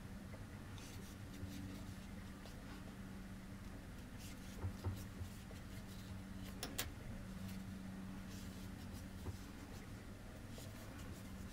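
Faint rustling and light ticks of yarn and a crochet hook being worked by hand, with one sharper click about two thirds of the way through, over a low hum.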